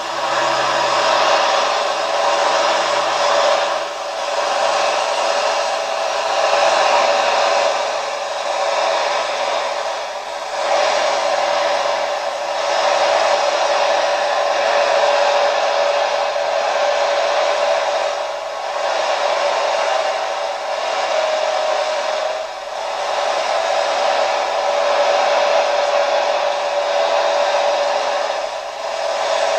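Engines of a multi-engine modified pulling tractor running hard under load: a loud, steady, thin-sounding roar with short dips every few seconds.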